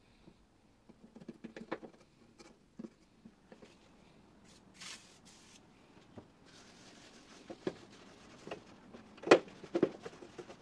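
Light clicks and knocks of a metal toolbox being handled, then a brief hiss of WD-40 sprayed from the aerosol can about five seconds in. A cloth rag follows, rubbing over the painted metal with a few sharper clicks, the loudest near the end.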